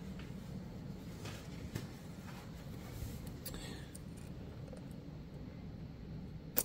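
Faint handling of the plastic MAP sensor and its mount by hand, light scrapes and taps, with one sharp click near the end, over a steady low shop hum.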